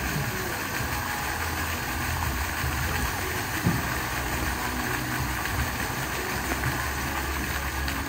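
Fountain jets splashing steadily into a shallow pool, an even rush of falling water over a low rumble.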